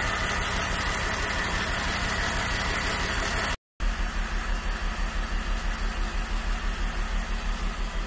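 BMW E39 530i's straight-six engine idling rough, misfiring on cylinder 2 from a faulty ignition coil. The sound breaks off briefly about three and a half seconds in, then returns with an uneven, pulsing beat.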